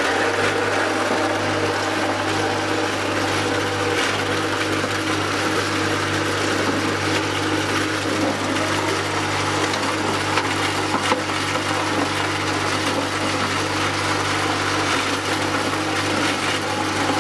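Hollow-block making machine switching on and running steadily with a constant low hum while concrete mix is fed into its block mould.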